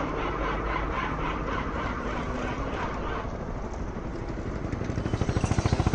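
Roadside traffic: a motor vehicle engine runs steadily, and from about four and a half seconds in a rapid low throbbing grows louder as a vehicle passes close by.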